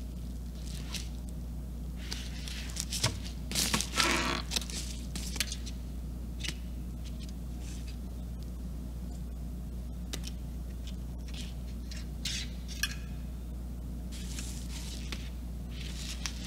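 Handling noise as a graphics card is lifted and turned on a padded paper mailer: scattered rustles and scrapes, busiest about three to five seconds in, over a steady low hum.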